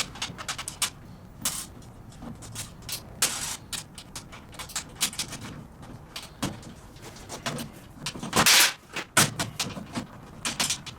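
Metal hardware handled while fitting casters to a steel tool cart: irregular clicks and knocks of bolts, washers and nuts, with a longer scraping rasp about three seconds in and a louder one about eight and a half seconds in.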